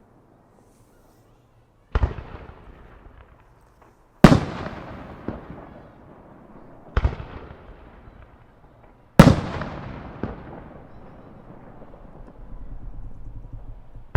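Aerial firework shells bursting overhead: four sharp booms two to three seconds apart, the second and fourth the loudest, each followed by a long rolling echo.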